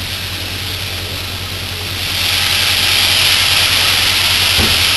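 Mushrooms and smoked chicken sizzling in a hot frying pan as soy sauce is poured in. The sizzle grows louder about two seconds in, over a steady low hum.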